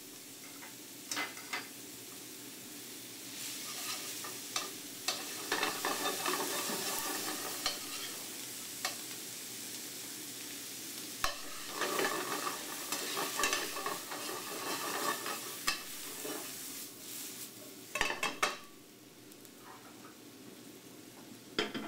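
Arugula and diced tomatoes sizzling as they wilt in a stainless steel skillet, with metal tongs clicking and scraping against the pan as the greens are tossed. The sizzle swells a few seconds in and dies down near the end.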